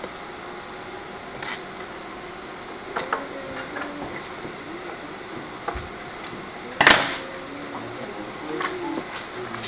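Stiff printed paper of a model helicopter canopy being handled and flexed: scattered paper crinkles and taps, with one louder crackle about seven seconds in.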